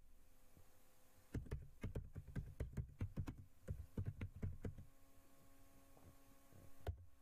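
Computer keyboard typing: a quick run of key presses starting about a second and a half in and lasting around three and a half seconds, then one louder click near the end. A faint steady electrical hum sits underneath.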